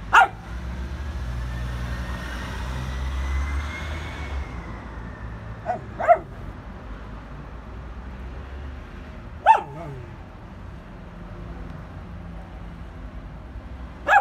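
A dog barking in short single barks, five in all, several seconds apart, two of them in quick succession. A passing vehicle rumbles underneath during the first few seconds.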